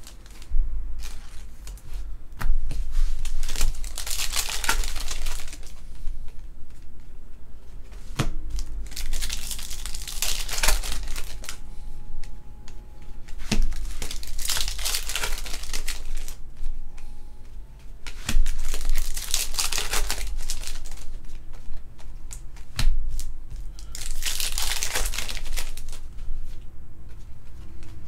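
Trading-card pack wrappers crinkling and tearing as packs are ripped open by hand, in about five bursts a few seconds apart, with the clicks of cards being handled in between.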